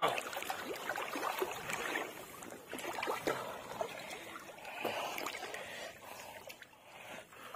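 Muddy river water splashing and sloshing in irregular bursts, with many small sharp splashes, as a fish caught on a bottle-trap hook thrashes at the surface and a person moves through the water.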